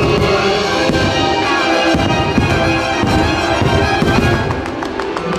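Orchestral show music with brass and strings played over loudspeakers, with firework shells bursting several times over it.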